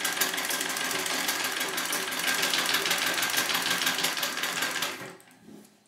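Singer 66 treadle sewing machine stitching at a fast, even rate, the needle bar and mechanism clattering steadily, then stopping about five seconds in.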